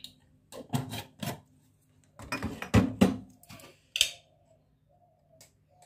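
A spoon and plastic spice jars being handled while spice is spooned out: irregular taps, knocks and light scrapes in three short clusters.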